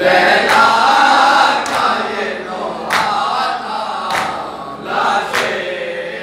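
Group of men chanting an Urdu noha together, held sung lines in a mourning lament. Sharp chest strikes of matam keep the beat, one about every 1.2 seconds.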